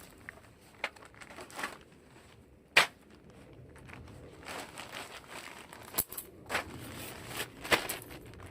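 Rustling and crinkling of things being handled, broken by several sharp clicks and knocks; the loudest is a single crack about three seconds in.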